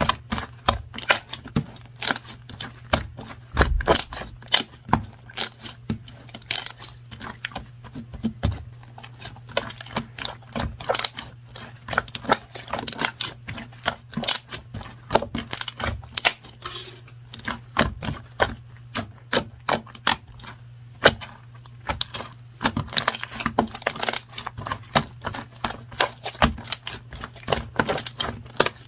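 Rapid, irregular clicking and tapping, several clicks a second, over a steady low hum.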